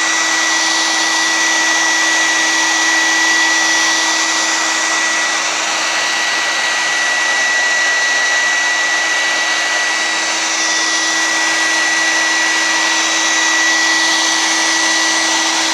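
Handheld hairdryer running steadily on its high setting: a constant rush of air with a steady whine from the motor.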